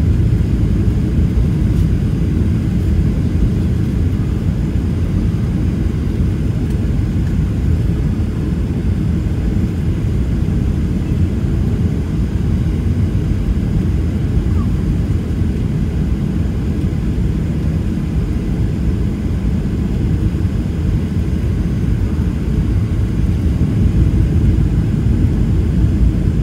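Steady low rumble of engine and airflow noise inside the cabin of a Boeing 737-700 with CFM56-7B turbofans, heard from a window seat over the wing during the approach.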